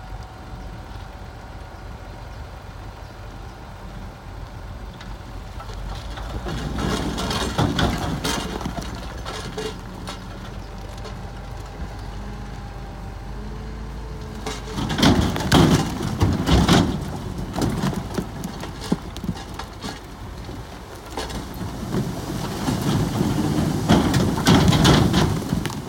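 Komatsu D65E bulldozer at work: a low diesel engine drone under three bouts of clattering and clanking, about six seconds in, about fifteen seconds in, and again near the end.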